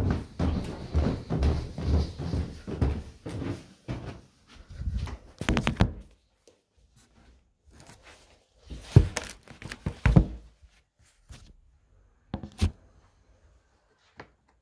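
Footsteps climbing carpeted stairs, regular dull thuds about twice a second, stopping about four seconds in. After that, a few scattered knocks and rustles as the recording phone is handled.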